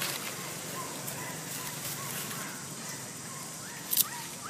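A run of short, arched chirping animal calls, two or three a second, over a steady outdoor background hiss. A brief sharp crackle comes about four seconds in.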